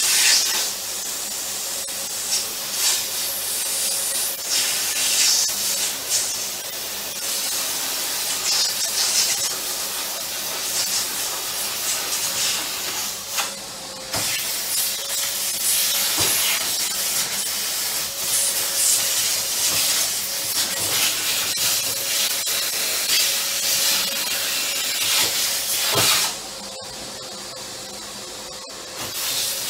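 Vacuum cleaner running with its nozzle in a microwave's side air vent, sucking out dust: a steady hiss with a faint constant whine, surging and easing as the nozzle moves, and dropping quieter for a few seconds near the end.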